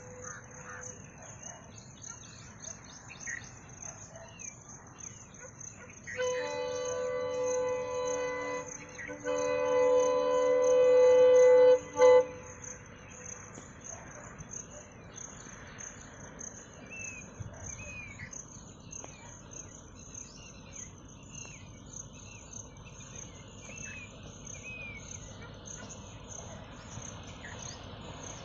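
WDP-4D diesel locomotive's horn sounding two long blasts about six and nine seconds in, the second growing louder before cutting off at about twelve seconds, as the train approaches. Insects trill steadily throughout, and birds chirp in the second half.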